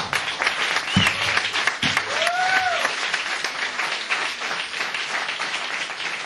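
Audience applause, dense clapping that eases off slowly toward the end.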